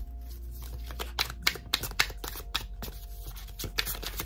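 Deck of tarot cards being shuffled by hand: an irregular run of quick card flicks and snaps.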